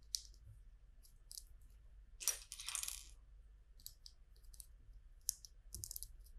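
Small plastic LEGO pieces clicking and clattering as they are handled, in a scattered run of light clicks, with a longer rattle of loose pieces about two seconds in.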